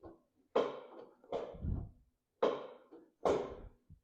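Four sharp taps on metal, in two pairs: a pin being tapped into the clutch yoke.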